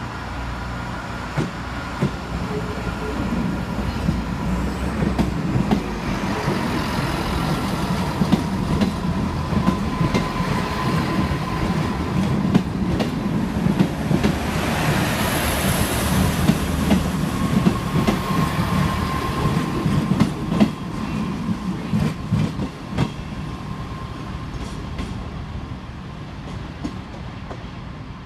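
Two coupled Class 158 diesel multiple units passing close by under power, their underfloor diesel engines running and the wheels clicking over the rail joints. A brief high squeal comes about halfway through, then the sound fades as the train moves away.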